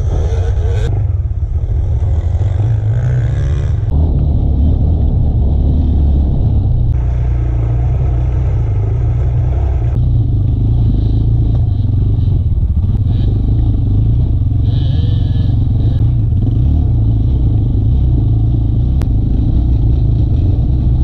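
Dirt bike engine running while riding over a rocky trail, heard through an onboard camera with heavy low rumble and clattering from the stones. The sound changes abruptly several times where clips are cut together.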